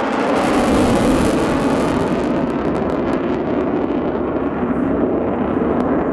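Twin Pratt & Whitney F100 turbofans of an F-15J Eagle in flight: a loud, steady jet roar whose high hiss is strongest in the first couple of seconds and then fades as the jet moves away.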